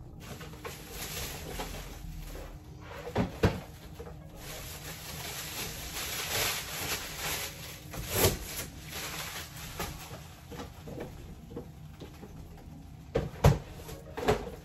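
Clear plastic packing wrap rustling and cardboard boxes being handled and shoved during unpacking, with a handful of sharp knocks: two close together about three seconds in, one in the middle and two near the end.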